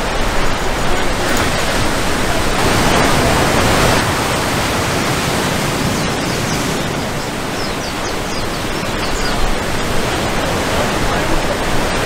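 Steady rush of ocean surf as waves break, swelling a little a few seconds in.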